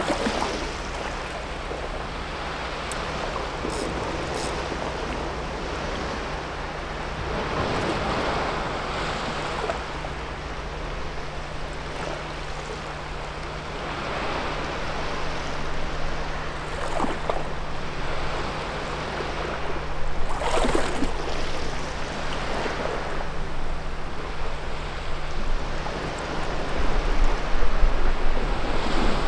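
Sea waves washing against a rocky shore, surging louder and falling back every few seconds, over a faint low steady hum.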